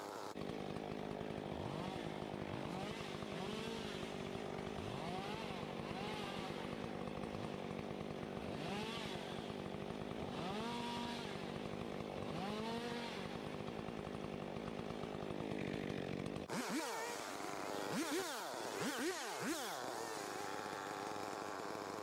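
Gas chainsaw running through vines and brush, its engine revving up and falling back over and over as it cuts.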